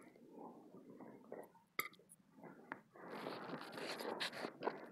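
A fork clinks lightly against a plate a few times. About three seconds in comes a longer, noisy slurp as a forkful of sauced noodles is sucked into the mouth.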